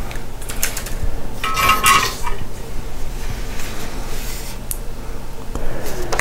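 Small metal clicks and clinks of soldering tools (tweezers, clip, iron) being handled and set down on a work surface, with one ringing clink about one and a half seconds in. A steady low hum runs underneath.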